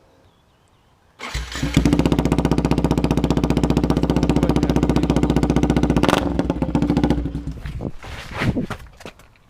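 Yamaha WR125X's single-cylinder four-stroke engine, fitted with an Akrapovic exhaust, starting suddenly about a second in and idling with an even, rapid exhaust pulse. About six seconds in it drops off and sputters out, with a last few irregular pops before it stops.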